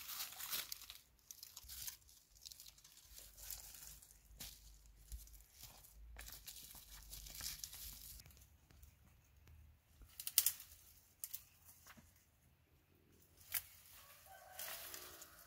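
Dry twigs and sticks snapping and rustling as they are broken and gathered by hand for firewood, with dry leaves crackling underfoot. The irregular sharp cracks are loudest twice, about two-thirds of the way in and again near the end.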